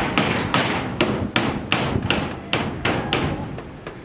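Steady hammering: sharp hammer blows about two to three a second, each ringing briefly.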